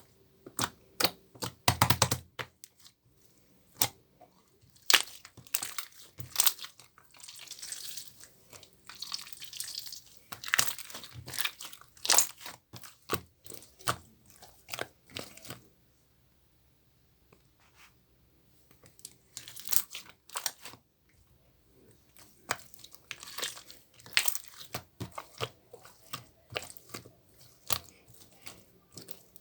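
Crinkling and tearing of crinkly material being handled close up: irregular bursts of sharp crackles and short rips, with a pause of a few seconds around the middle.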